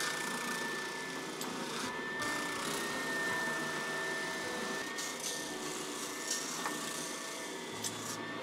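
Sanding drum spinning on a drill press, sanding the edge of a clear acrylic piece pressed against it: a steady high whine over an even hiss.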